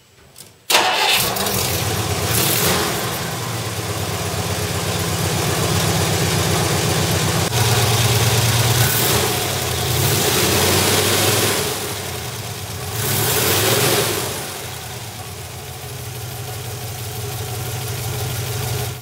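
Studebaker 289 cubic-inch V8 with a four-barrel carburetor starting about a second in, then running and revved up several times by hand at the carburetor throttle linkage.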